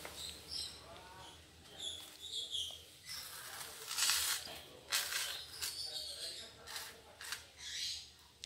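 Rustling and scraping as a large porang (konjac) tuber with hairy roots is handled and set down on a tiled floor, with a few short, louder scrapes about four to five seconds in.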